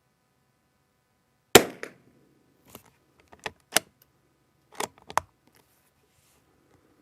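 A single .22LR rifle shot about a second and a half in, followed by a run of sharp metallic clicks as the rifle's bolt is worked to eject the spent case and chamber the next round.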